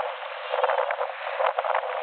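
Wind buffeting the microphone in irregular crackling gusts, dipping briefly near the start, over the rush of water along the hull of a sailing schooner under way.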